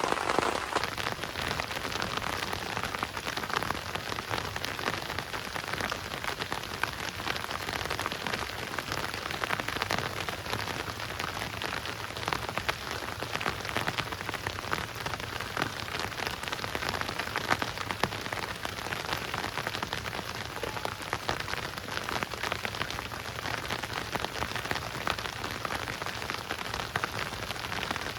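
Heavy rain falling steadily, a dense even patter with many sharp individual drop hits.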